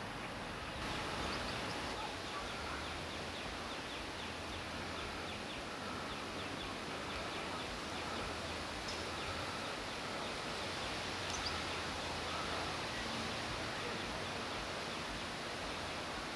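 Steady outdoor ambience: a rustling hiss of wind in the trees, with faint, scattered bird chirps.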